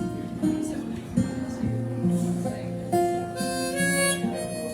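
Acoustic guitar picking a slow accompaniment, with a harmonica coming in about three seconds in and playing long held notes over it.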